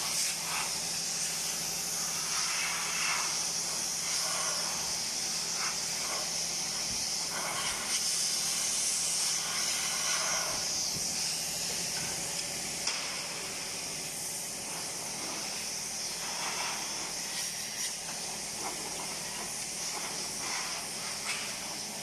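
Compressed air hissing steadily as it is blown through a dry-type air filter element to clear out dust.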